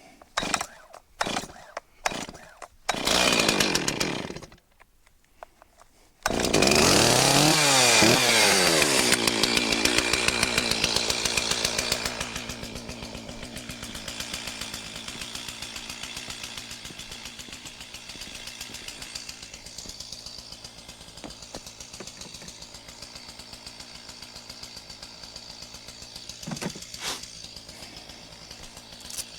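Stihl 036 Pro two-stroke chainsaw being pull-started: a few quick pulls, a brief catch that dies, then it fires about six seconds in. It runs fast for a few seconds and settles to a steady idle to warm up.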